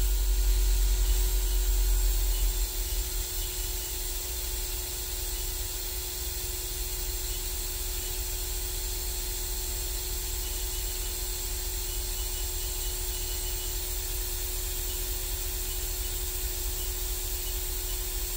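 Haas VF0 vertical machining center spindle running steadily at 2,000 RPM with no load, a constant hum with a steady tone over a soft hiss. A deeper rumble is stronger for the first two and a half seconds, then eases.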